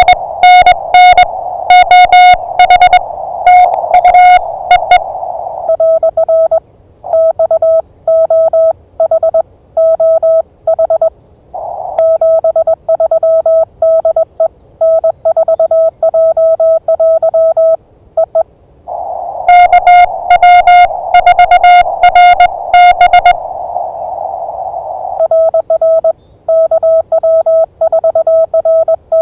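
Morse code (CW) tones from an amateur radio transceiver: a harsh, buzzy keyed tone for the first five seconds and again from about 20 to 23 seconds, alternating with a slightly lower, cleaner keyed tone over receiver hiss. It is the back-and-forth of contacts in a Parks on the Air pileup.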